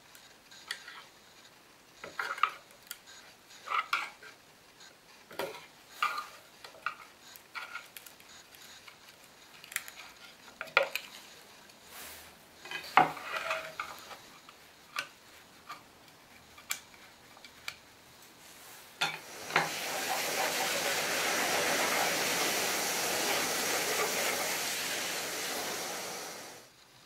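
Irregular small clicks and knocks of a hand tool prying the beading off a cabinet door. About 19 seconds in, a steady hiss starts, louder than the clicks, and cuts off suddenly near the end.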